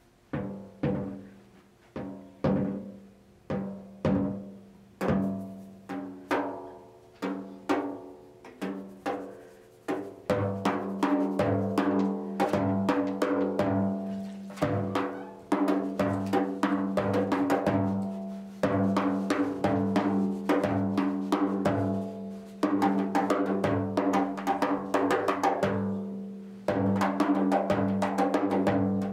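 A large hand-held frame drum struck with a soft beater: single hits with a pitched, ringing tone, each fading before the next, then from about ten seconds in a faster, steady run of strokes.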